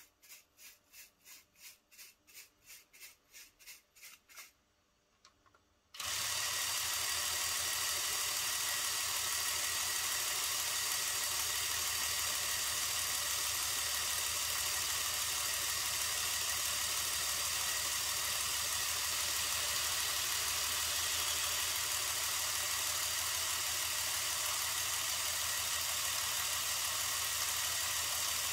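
Small electric air compressor switched on by a power-plug relay, cutting in suddenly about six seconds in and then running steadily with a loud hiss over a low hum. Before it starts there is a faint run of short, evenly spaced pulses, about three a second.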